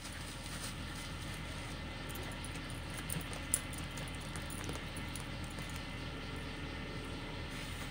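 A dog digging with its front paws, scratching and scraping in soil and dry leaves, over a steady background hiss, with one sharper click about three and a half seconds in.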